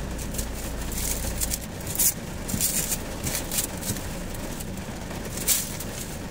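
Black plastic stretch wrap being pulled off the roll and wound around a box, rustling and crackling, with several sharper crinkles as the film is tugged tight.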